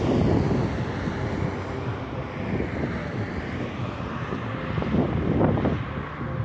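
Wind buffeting the microphone over the low rumble of a Volkswagen Volksbus 8-150 diesel midibus approaching along the road.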